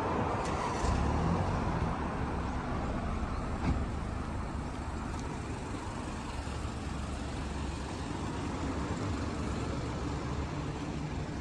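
Steady low rumble of car engines and road traffic, with a few brief light clicks.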